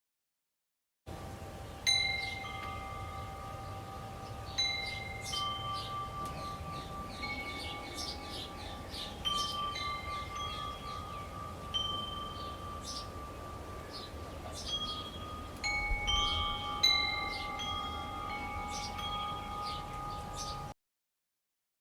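Wind chimes jingling irregularly in a breeze: scattered struck notes ring on and overlap, over a faint low rumble. The chimes start about a second in and cut off abruptly near the end.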